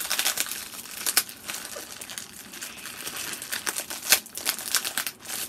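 Plastic shipping bag crinkling and crackling as it is handled and pulled open by hand, with sharp louder snaps about a second in and again about four seconds in.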